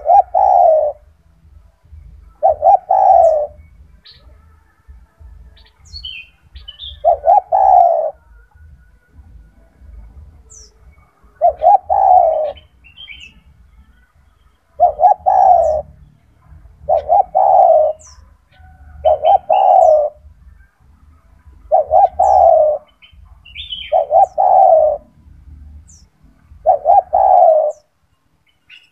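Spotted dove (tekukur) cooing over and over: about ten loud, low coo phrases, each lasting about a second, a few seconds apart.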